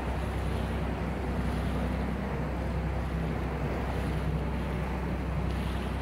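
Wooden boat under way at sea: a steady low engine drone with water rushing along the hull and wind on the microphone.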